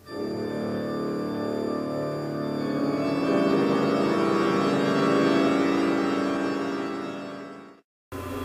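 Organ music playing held chords that swell and then fade, cutting off abruptly near the end. Other music starts right after a brief silence.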